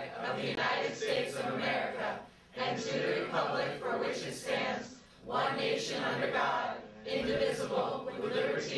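A group of voices reciting the Pledge of Allegiance in unison, in phrases broken by short pauses.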